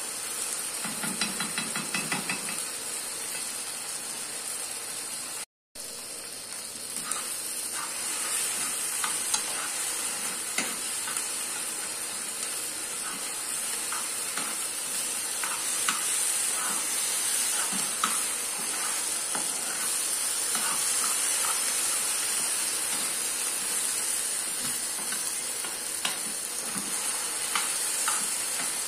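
Cooked rice frying in a pan with a steady sizzle, while a metal spoon stirs and scrapes it with scattered clicks against the pan. The sound cuts out for a moment about five seconds in.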